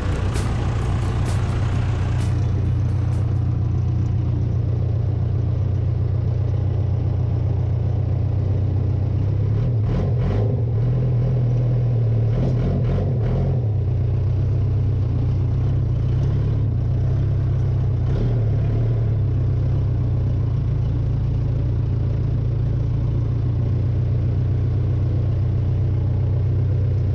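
Case 580K backhoe's diesel engine running steadily while it digs, with a few knocks and a brief change in the engine note about ten to fourteen seconds in.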